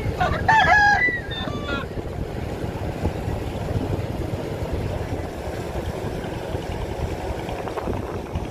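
Steady low rumble of a wooden fishing trawler's engine as it motors past, with wind and water noise; a rooster crows once near the start, for about a second and a half.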